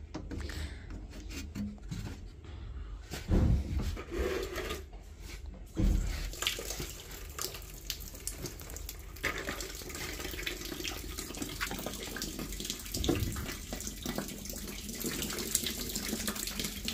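Water running out of a Baxi Roca boiler's heating circuit through its small drain valve as the circuit is emptied: a couple of knocks as the valve is worked, then from about six seconds in a steady rush of draining water.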